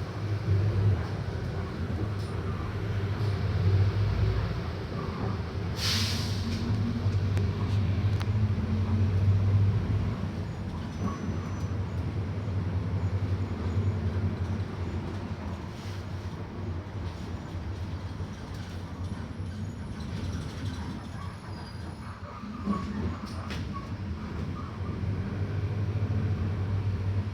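Mercedes-Benz OF 1721 bus running, a steady low engine drone that rises and falls, with creaks and rattles from the bodywork. A short hiss of air about six seconds in.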